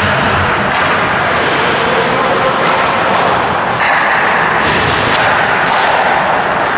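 Ice hockey game sound in a rink: a steady loud din of play and spectators, broken by several sharp knocks of sticks and puck.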